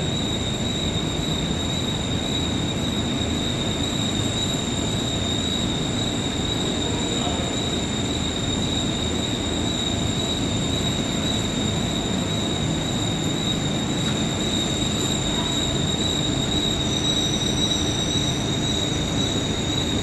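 Large ventilation fans of a controlled dairy shed running steadily: an even rushing noise with a constant high whine on top.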